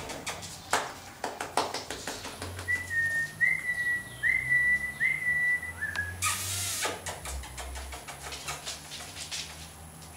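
A person whistles a run of about five short high notes, each with a quick upward slide at the start. Underneath are scratchy rustles and small clicks from boxer puppies moving and chewing on a fleece blanket, with one louder rustle about six seconds in.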